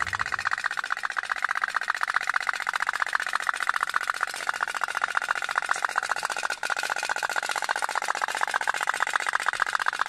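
Otok-otok pop-pop toy boat running: its candle-heated steam engine making a fast, even popping, about ten pops a second.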